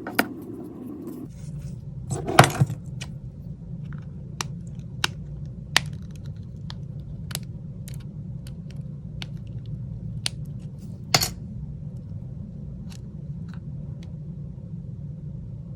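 Scattered sharp clicks and taps of small metal tools against a smartphone's opened internals, the loudest a few seconds apart, over a steady low hum that starts about a second in.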